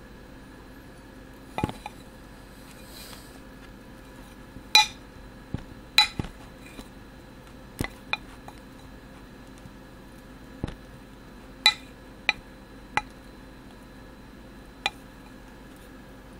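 A metal utensil knocking and clinking against the sides of a glass 4-cup measuring cup while stirring thick peanut butter and powdered sugar: about a dozen separate clinks at irregular intervals, some ringing briefly, over a faint steady hum.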